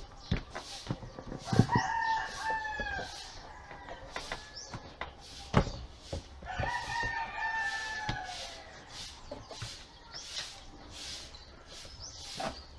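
A rooster crowing twice, about five seconds apart, each crow a long call of about a second and a half that falls slightly in pitch at the end. Scattered knocks from the wooden drawer being handled, a sharper one just before each crow.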